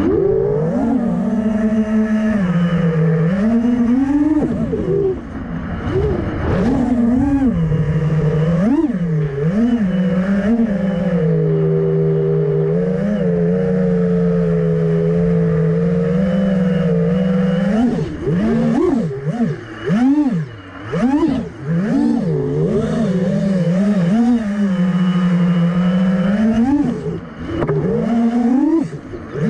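FPV freestyle quadcopter's four 2400KV brushless motors whining as heard from the onboard camera. The pitch rises and falls with every throttle change. It holds fairly steady for several seconds in the middle, then comes a quick run of throttle chops and punches, with brief drops in loudness.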